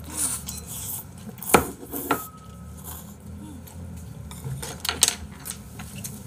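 Eating utensils clinking and knocking against dishes. The loudest knock comes about a second and a half in, then a clink that rings briefly, and a few lighter clicks follow near five seconds.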